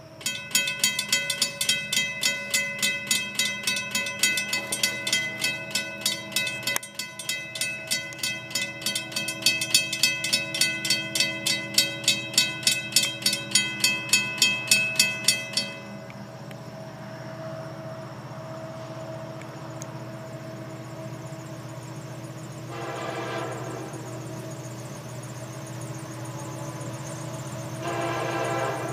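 Railroad grade-crossing bell ringing about twice a second, then stopping about sixteen seconds in. Under it and after it, a steady hum from the approaching freight locomotive, whose radiator fans are running, with two short train horn blasts near the end.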